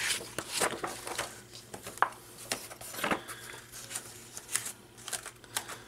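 Paper planner pages rustling and clicking as they are handled and pressed onto the plastic discs of a discbound planner, in a string of short, scattered ticks and crinkles.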